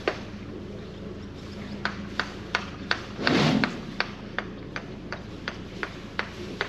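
Motor yacht's engine running steadily, with a regular run of sharp ticks, about three a second, on top and a brief rush of noise about three seconds in.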